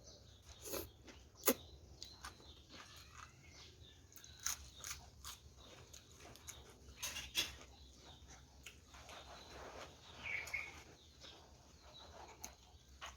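A person chewing crunchy food close to the microphone, with irregular crunches and wet mouth clicks.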